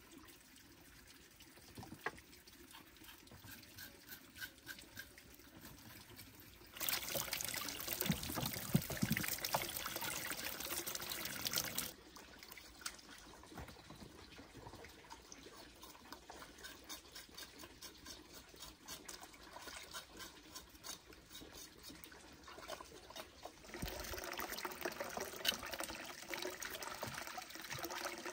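Water trickling and pouring, with small splashes. It gets much louder for a few seconds about seven seconds in and again near the end.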